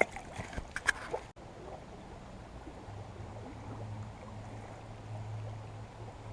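Creek water running faintly, with a few short clicks and knocks in the first second or so and a steady low hum underneath that grows a little louder about halfway through.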